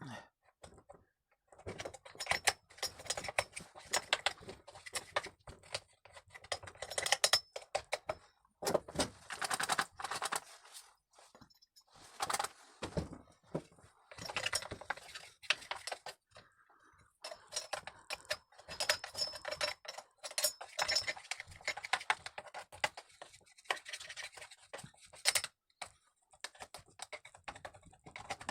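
A brush scrubbing caked chain oil and dust off Stihl MS 181 chainsaw parts: rapid scratchy strokes with small clicks and knocks, in spells of a few seconds broken by short pauses.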